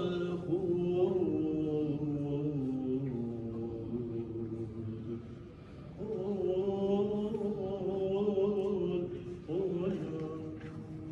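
A rabbi's voice chanting a Jewish blessing prayer in long, drawn-out, melismatic notes. There are two phrases with a short pause about halfway, and the second phrase opens higher.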